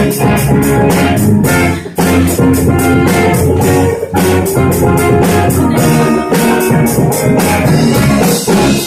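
Live rock band playing a passage without vocals: guitar over a drum kit keeping a steady beat, with brief breaks about two and four seconds in.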